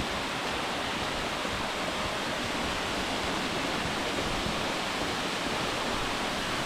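Steady, even rush of water falling from a waterfall.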